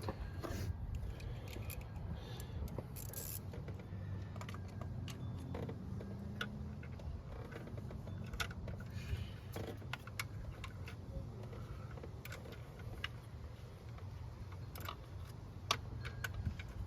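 Scattered light metallic clicks and clinks of hand tools working a bolt in an engine bay, over a steady low hum.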